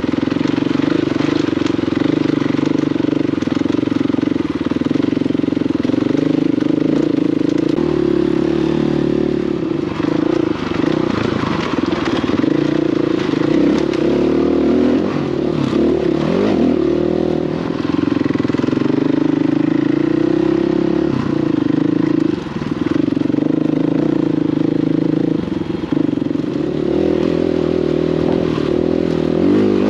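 Dirt bike engine running under load on a rocky trail, its pitch rising and falling with throttle and gear changes through the middle stretch, with the clatter of the bike over stones.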